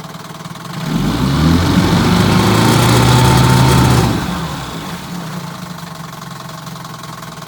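1957 Johnson 5.5 hp two-cylinder two-stroke outboard, shifted into reverse, revved up about a second in, held at high revs, then throttled back to idle around the fourth or fifth second. It runs without rod knock on a replacement power head.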